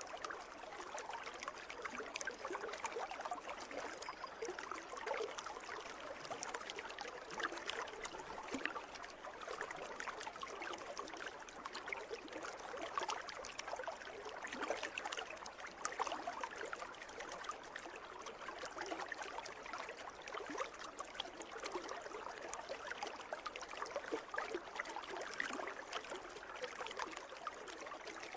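Pool water trickling steadily, a continuous stream of many small splashes and drips.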